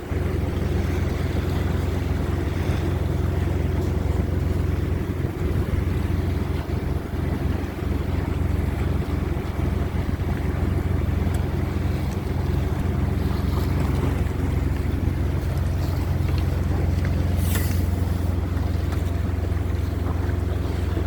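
Yacht under way: a steady low drone with water rushing along the hull and wind on the microphone, and one brief click about three-quarters of the way through.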